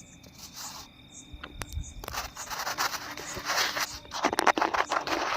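Scraping and rustling noise full of small clicks, starting about two seconds in and growing louder.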